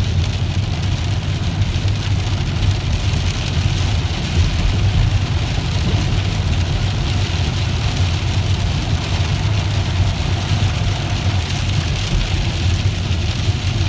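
Steady low rumble of a car driving through heavy rain, heard from inside the cabin, with an even hiss of rain and spray on the car.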